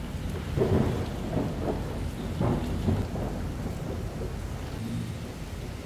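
Thunderstorm at night: rolling thunder over steady rain, with louder rumbles about a second in and again around two and a half to three seconds in.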